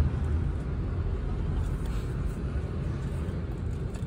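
Steady low rumble of a moving car: engine and road noise.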